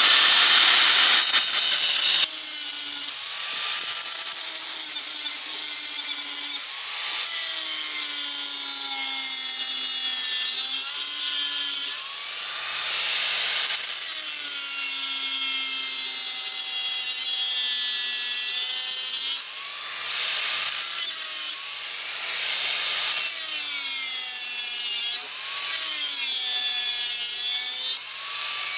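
Corded Ridgid angle grinder with a cut-off wheel notching a metal bar held in a vise: a loud, continuous grinding hiss over the motor's whine, which sags and recovers as the wheel bites into the metal. The loudness drops briefly several times as the wheel is eased off and put back to the cut.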